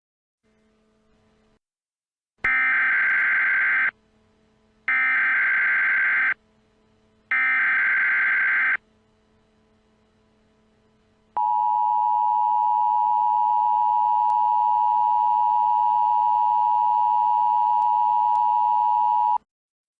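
Emergency Alert System SAME header: three short bursts of warbling digital data tones, each about a second and a half long. Then a steady attention tone holds for about eight seconds and cuts off suddenly, signalling that an alert message follows.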